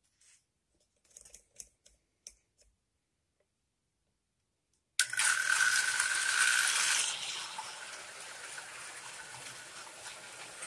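Near silence with a few faint clicks, then about halfway through the track power comes on and O gauge electric model trains start up on three-rail track: a sudden loud hissing rush with a steady high tone for about two seconds, settling into a quieter steady running noise.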